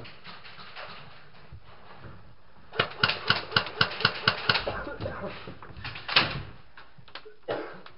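Airsoft gun firing a quick string of about ten sharp shots, roughly five a second, then one louder single crack about a second and a half later, with a few softer knocks around it.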